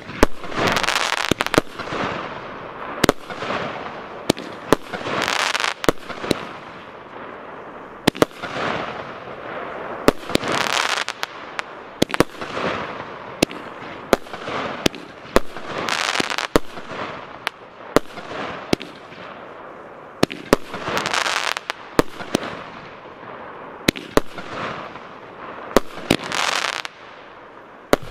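Piromax Sky Flash Zenith 19-shot, 30 mm firework battery (cake) firing shot after shot, roughly one every second and a half. Each shot is a sharp bang followed by about a second of hissing as the stars burst and burn.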